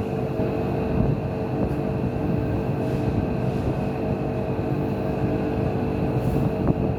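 A motor or engine running steadily, a constant low rumble with a steady hum.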